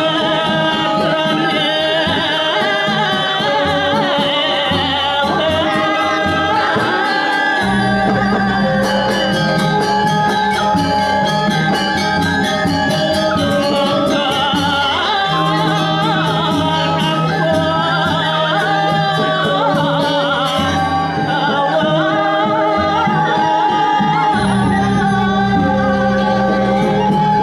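Balinese gamelan playing the accompaniment for a Telek masked dance: bright metallophones ring out a busy interlocking melody over a steady rhythm. A deep low gong-like tone sets in about eight seconds in and again near the end.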